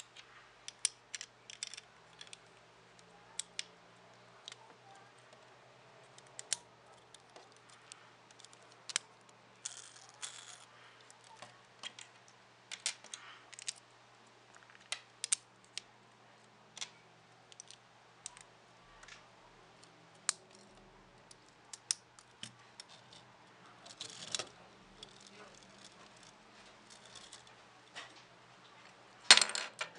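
Plastic Lego bricks clicking and clattering as a small Lego tractor and trailer are handled and pieces fitted together: irregular sharp clicks throughout, with a louder clattering burst near the end.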